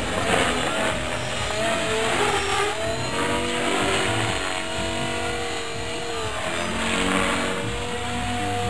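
B400 radio-controlled model helicopter in flight: its motor and rotor whine shifts up and down in pitch as it is thrown through manoeuvres, over a steady rushing noise.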